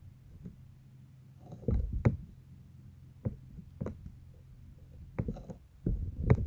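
Slime being squeezed and worked by hand: soft low squelches with sharp little clicking pops about once a second.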